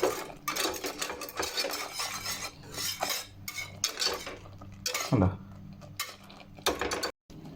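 A spoon stirring and scraping through thick white sauce in a cooking pan, in repeated short strokes against the pan.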